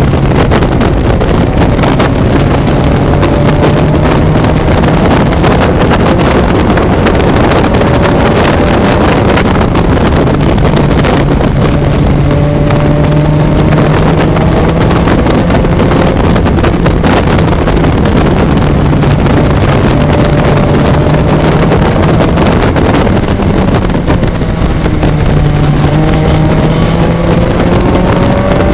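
VITA-01 race car's four-cylinder engine running hard at racing speed, heard from an onboard camera with heavy wind buffeting on the microphone. The engine note climbs several times as the car accelerates.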